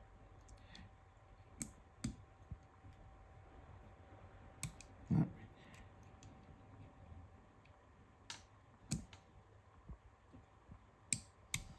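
Small sharp clicks of plastic and metal rifle parts being handled and fitted by hand, about ten scattered irregularly: the bolt catch mechanism being worked into place.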